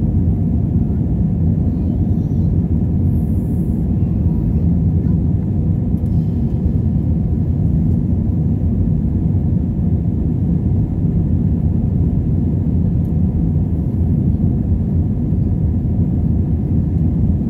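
Steady low rumble of engine and airflow noise inside an airliner cabin during the climb after takeoff.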